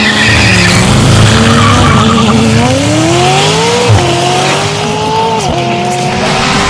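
McLaren 600LT twin-turbo V8 breathing through a Fi valvetronic catback exhaust, accelerating hard. The engine note climbs, drops at an upshift about four seconds in, then climbs and drops again at a second upshift a moment later.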